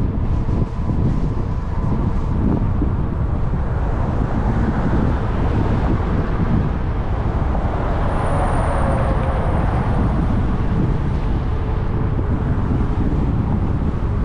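Road traffic passing on the highway beside the trail, mixed with wind buffeting the microphone of a moving e-bike. One vehicle swells louder around the middle, with a slight fall in pitch as it goes by.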